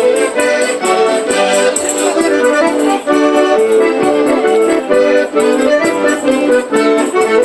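Piano accordion playing a quick traditional folk dance tune, with light high percussion keeping a steady beat.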